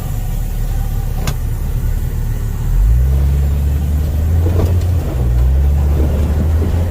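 Jeep Cherokee engine pulling off-road, a low drone that swells as throttle is added about three seconds in. There is a single sharp click about a second in.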